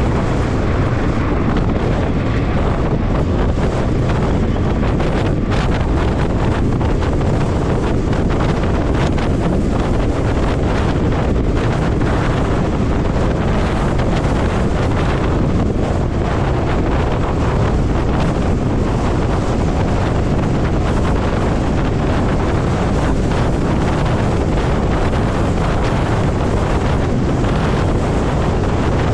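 Steady wind rush buffeting the helmet-mounted microphone while riding a Zero electric motorcycle at highway speed; the electric drive adds no engine note.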